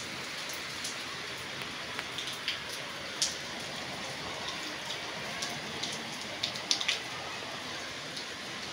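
Moderate monsoon rain falling steadily as an even hiss, with sharp ticks of single drops striking close by, clustered about six to seven seconds in.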